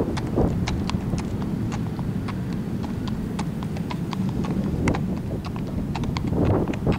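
Horse's hooves clip-clopping on asphalt in a steady rhythm, a few sharp strikes a second, over a steady low rumble.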